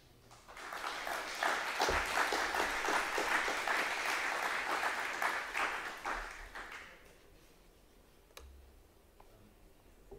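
Audience applauding, starting about half a second in and fading out after about six seconds.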